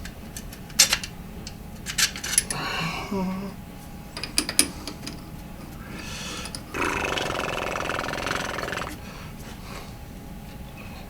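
Sharp clicks and knocks of small metal parts and tools being handled, then a small power tool runs for about two seconds, starting about seven seconds in.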